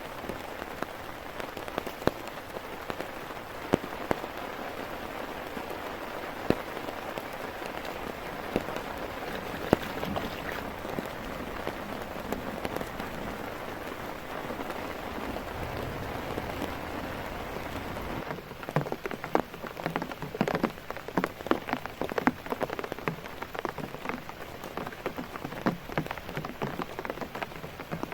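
Heavy rain falling steadily, with scattered sharp drop strikes. About eighteen seconds in the steady hiss drops away, leaving dense, irregular hits of large drops on a surface.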